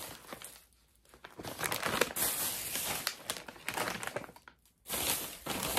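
Plastic snack pouches crinkling as they are handled, in three stretches with two short pauses.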